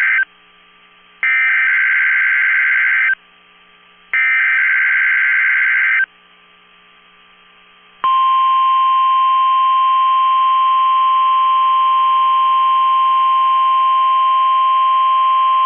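NOAA Weather Radio required weekly test signal. It starts with the end of one shrill digital SAME header burst, then two more bursts of about two seconds each, a second apart. After a short pause, about eight seconds in, the single steady 1050 Hz tone alert comes on and holds.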